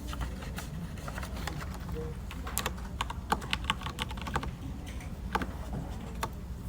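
Typing on a computer keyboard: irregular key clicks, in a quick run in the middle, over a steady low office hum.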